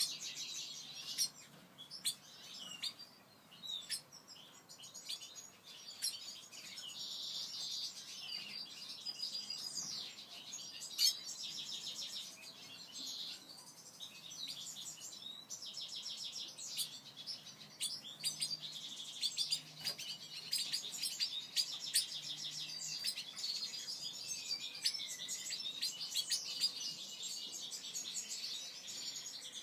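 Black-headed siskins chirping and twittering in quick runs of high notes and short trills, with a few falling whistled notes near the end.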